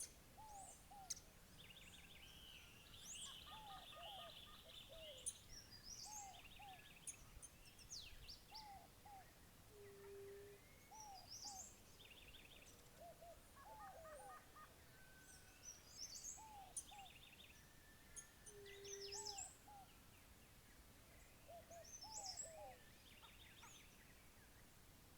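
Faint chorus of several birds singing and calling: high chirps, quick trills and repeated pairs of short arched notes. A short, low, steady note recurs about every nine seconds.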